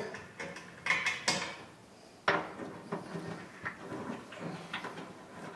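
A few light clicks and knocks as a tailgate handle is handled and seated in its opening in a pickup's tailgate, the sharpest knock a little past two seconds in, followed by smaller ticks.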